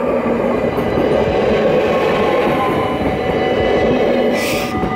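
Yellow-and-blue Dutch NS passenger train passing close by: a steady, loud rush of wheels on rails, with a brief hiss near the end.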